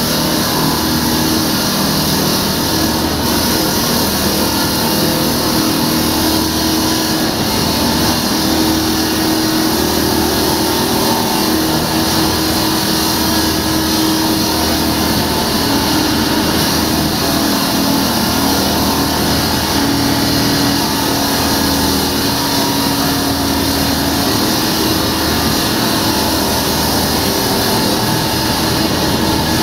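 Diamond-blade concrete saw running steadily as it cuts into concrete, a loud even grinding hiss over a low motor hum.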